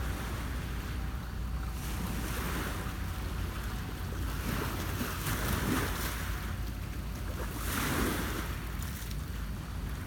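Small lake waves washing against shoreline rocks, coming in three or four swells, the loudest near the end, over a steady low wind rumble on the microphone.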